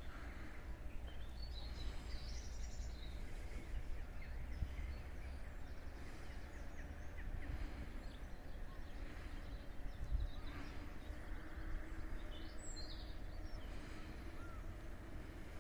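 Wild birds chirping and singing in short phrases, clearest about two seconds in and again near thirteen seconds, over a steady low rumble.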